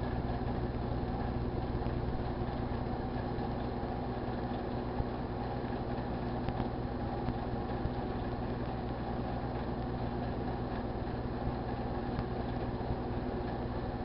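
GE Dual Wave microwave oven running with a steady low hum.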